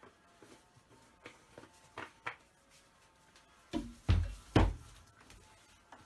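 A few light clicks and taps, then two or three dull thuds about four seconds in as a plastic jar of rice-flour batter is handled and set down on a glass stovetop.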